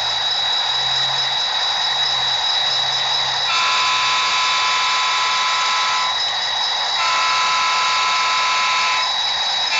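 Sound decoder of an HO-scale model diesel locomotive, playing through its small onboard speaker and heard over a video call. The diesel engine sound runs as a steady hiss, and the horn blows a long chord twice, about 3.5 and 7 seconds in, with a third blast starting at the very end.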